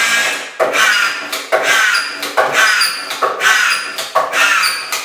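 Festool DuraDrive DWC 18-4500 cordless autofeed drywall screwdriver driving collated screws into plasterboard one after another, about one a second. Each screw is a sharp snap followed by a short whir of the brushless motor.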